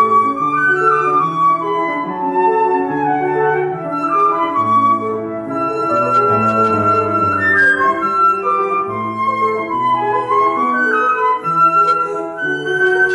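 Concert flute playing a melodic line of changing notes over piano accompaniment.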